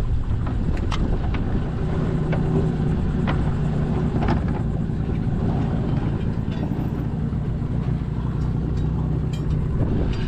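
Small outboard motor on a jon boat running steadily at low speed under way, with a constant low engine tone, over wind and water noise.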